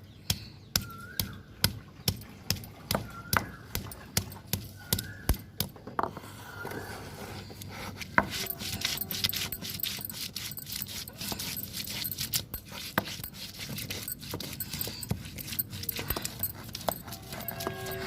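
Tulsi (holy basil) leaves and a piece of ginger being pounded in a mortar with a pestle. The pestle strikes sharply about twice a second for the first six seconds, then gives way to faster, rougher crushing and grinding strokes.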